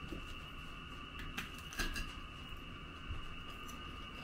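A few light clicks of a fork against a china plate, about one and a half and two seconds in, over a steady faint high whine.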